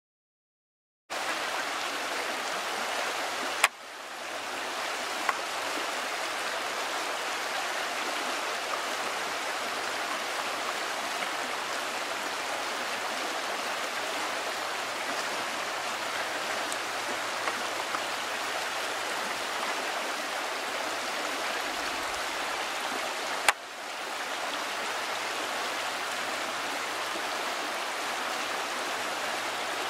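Shallow river running steadily over rocks, a constant rushing of water that starts about a second in. Two sharp clicks cut through it, one about four seconds in and another past twenty seconds.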